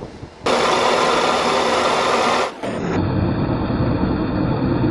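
A loud, even rushing noise for about two seconds. After a brief dip it gives way to a small electric motor running steadily, driving the vibrating shaker screen of a scale-model gold wash plant through a belt and pulley.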